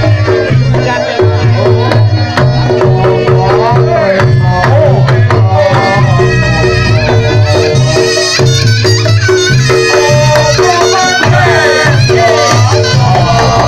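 Reog Ponorogo gamelan accompaniment playing loudly: a driving, repeating drum pattern under steady gong tones, with a wavering reed-horn melody weaving above.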